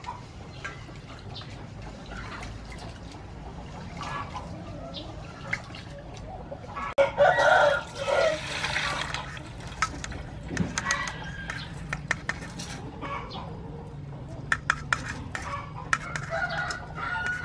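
A rooster crows loudly about seven seconds in, with chickens clucking around it. Wet sticky rice and water are poured from a steel bowl through a mesh strainer into another steel bowl, with sharp clinks of the metal bowls.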